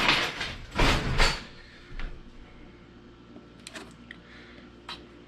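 Kitchen drawer sliding and rattling as a knife is fetched, loud for the first second or so and then stopping. A few faint light ticks follow as the knife works at cookie dough on parchment paper.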